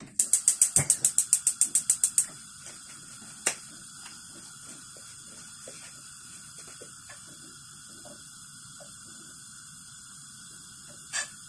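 Gas cooker's spark igniter clicking rapidly, about eight clicks a second for two seconds, until the burner lights; the gas flame then hisses steadily under the pan. A single click a little later, and a short knock near the end.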